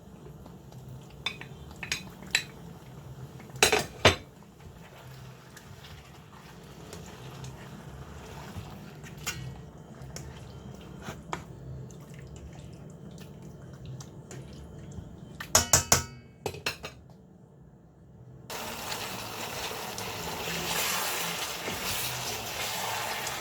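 Cooking utensils knocking and clinking against a pot a few times, with a quick cluster of clinks about two-thirds of the way in. Near the end a steady hiss starts abruptly.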